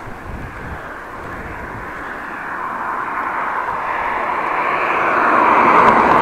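A car approaching and passing close by, its tyre and engine noise growing steadily louder and loudest near the end.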